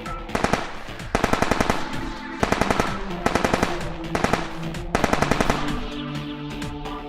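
Rapid-fire machine-gun sound effect in six short bursts of about ten shots a second, over electronic music.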